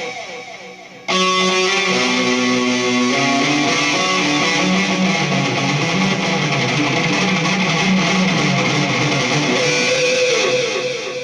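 Distorted electric guitar, a Dean VMNTX with Seymour Duncan SH-8 Invader pickups through a Peavey JSX tube amp, playing a lead solo through a homemade digital delay. A note slides down and fades with its echoes, then about a second in a loud held note comes in and rings out, fading near the end with repeats trailing behind. The delay carries a bit too much feedback and the tone has wild highs and weak lows, by the builders' own account.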